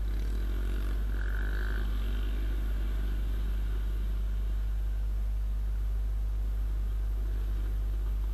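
Motorcycle engines running at low speed as a group rolls along: a steady low drone from the rider's own bike, with other motorcycles changing pitch nearby in the first few seconds. A short high beep sounds about a second in.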